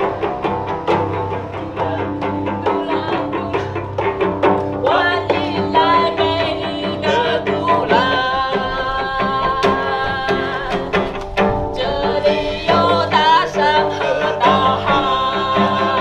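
Acoustic guitar strummed in a steady rhythm, with a hand drum tapped along. About five seconds in, a singing voice joins, holding long wavering notes.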